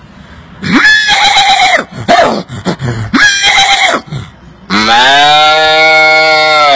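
A man imitating farm-animal calls with his mouth: a few short, wavering calls, then one long, steady, low call from about five seconds in.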